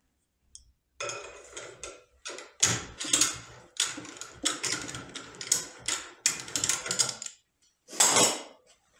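Rock Island Armory 1903 rifle action being unscrewed by hand from its steel barrel: a run of irregular metallic clicks and rattles starting about a second in and stopping about seven seconds in.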